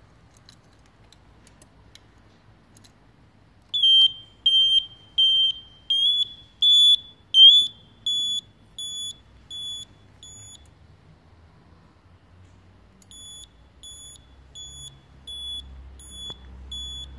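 Baas BLE2 piezo indicator buzzer on a Suzuki RV200 Van Van beeping in time with the flashing indicators, a high-pitched beep about one and a half times a second. It starts about four seconds in, stops for about two and a half seconds midway, then resumes more quietly.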